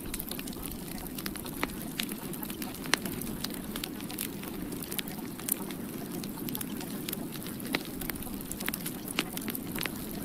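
Steady low rushing noise scattered with irregular sharp crackles, like a crackling fire.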